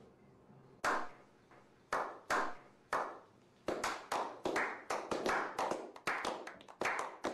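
A slow clap: one person claps at first, about once a second, then others join in from about three and a half seconds in, and the claps come faster and overlap.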